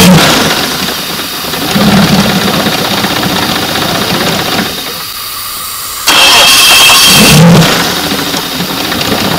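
Suzuki V6 four-stroke outboard engine being cranked on its electric starter and firing, running for a few seconds, then cranked again about six seconds in and catching to run steadily. This is the test start after the idle air control valve was cleaned, and the engine now keeps running instead of stalling at idle.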